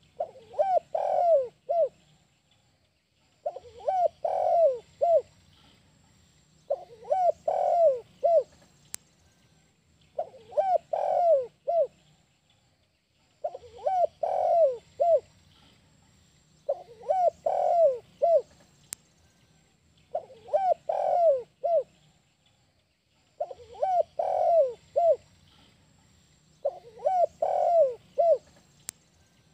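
Spotted dove (tekukur) cooing: a phrase of several coos, the 'kuk 1' song type, repeated about every three seconds, nine times.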